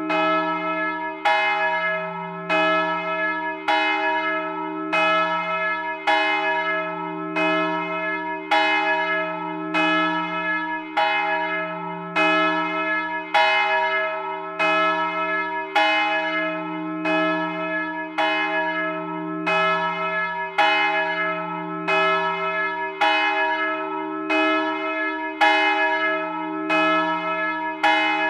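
The 984 kg Jézus Szíve great bell, a bronze church bell with strike note e1 cast by László Szlezák in 1927, is swinging on a raised yoke with a falling clapper and tolling at close range. It strikes steadily about once every 1.2 seconds, and its low hum keeps sounding between strokes.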